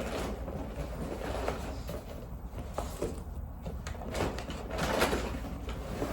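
Irregular rustling and light knocks of things being handled, over a steady low hum.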